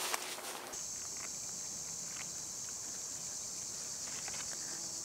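Insects chirring steadily in one high, even band, starting abruptly just under a second in; before that, a brief rustle with a few light clicks.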